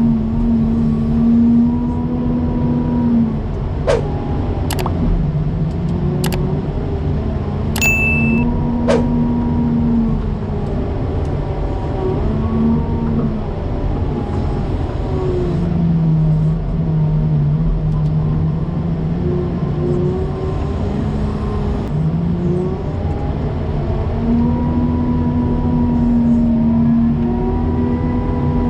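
Heavy snow-plowing equipment with its engine running and revving up and down as it pushes snow. A few sharp knocks come a third of the way in, and there is a brief high beep shortly after.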